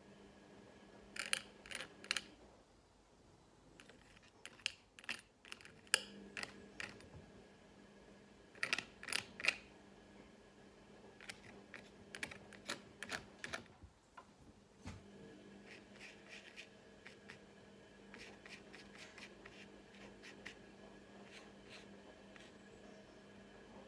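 Brush dabbing and scratching oil paint onto linen canvas: faint, short scratchy clicks in little clusters, busiest in the first half, over a faint steady hum.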